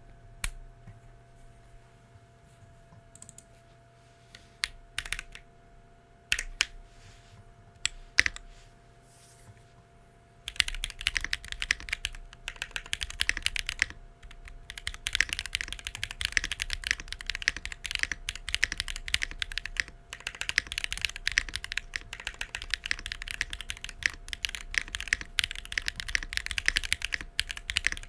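Womier RD75 mechanical keyboard with Weikav Rouge Axis switches on a carbon fibre plate, being typed on. For about the first ten seconds there are only a few single key presses, then fast, continuous typing runs on.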